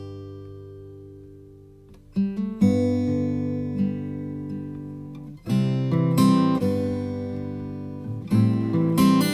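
Background music: an acoustic guitar strumming chords that ring on between strums, with heavier strums about two seconds in, around the middle and near the end.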